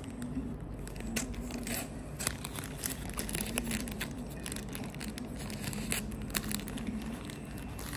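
Scissors snipping through black plastic tape wrapped around a cardboard box. The tape crinkles and tears in many irregular sharp clicks and rustles.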